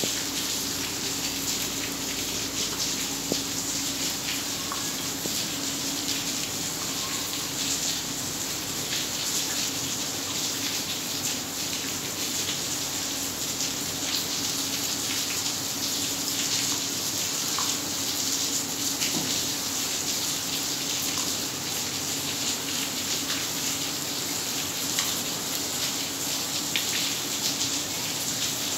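Heavy rain pouring steadily onto a flooded paved yard and puddles: a continuous hiss with dense, fine drop patter throughout.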